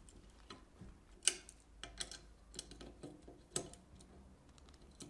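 Light, irregular clicks and taps of metal parts being handled on a rifle's adjustable palm rest, the sharpest about a second and a quarter in and again about three and a half seconds in.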